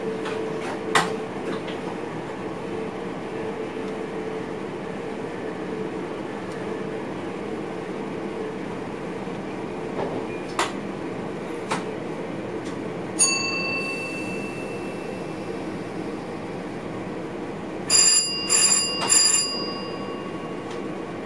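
Steady running noise of a passenger train heard inside the driver's cab, with a few sharp clicks. About 13 s in a single chime rings out and fades, and near the end a cab bell rings in three quick strokes.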